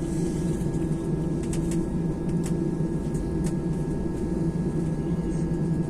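Airliner engines running with a steady drone, heard inside the passenger cabin, with a few faint clicks.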